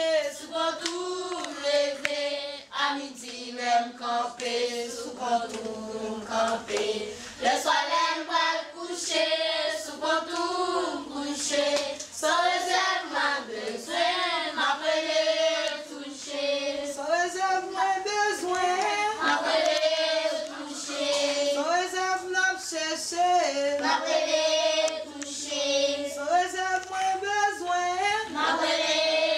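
A choir singing a song, with children's and women's voices in it.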